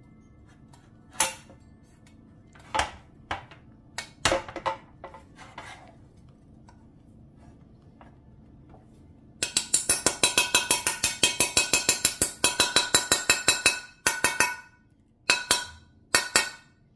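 Hammer tapping a socket used as a bearing driver, seating bearings into the heated aluminium right crankcase half of a Honda TRX250R engine. There are a few single ringing metallic taps, then about four and a half seconds of rapid taps at roughly eight a second, then a few more single taps.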